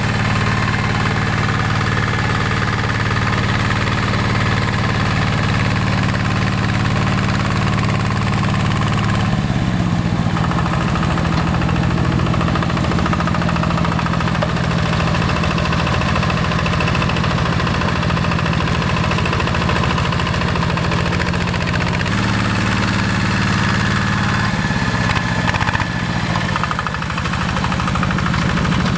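Yanmar single-cylinder diesel engine of a Quick G1000 hand tractor running steadily. Its speed drops a little about nine seconds in, picks up again a little past twenty seconds, then eases off once more a couple of seconds later.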